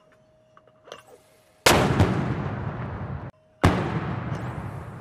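Two mortar shots about two seconds apart, each a sharp blast followed by a fading rumble that cuts off abruptly.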